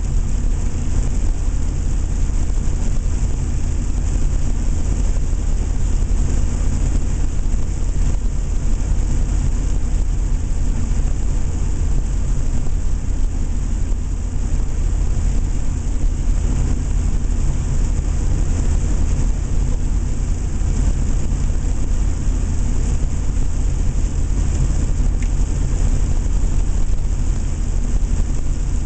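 7.3-litre turbo diesel engine pulling steadily at an even speed, with a deep rumble and the turbo's whistle over it, echoing in a tunnel.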